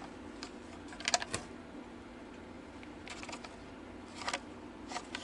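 Light clicks and taps of a plastic Lionel toy train caboose being handled and turned over in the hands, its trucks and wheels knocking. The loudest is a quick cluster of clicks about a second in, with a few softer ones later.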